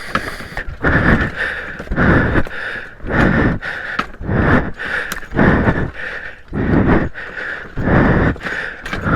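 A person breathing hard from exertion while hiking uphill, one heavy breath about every second.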